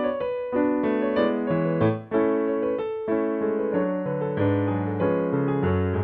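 Digital piano playing a melody over held chords, the notes changing about every half-second to a second, with a brief break about two seconds in.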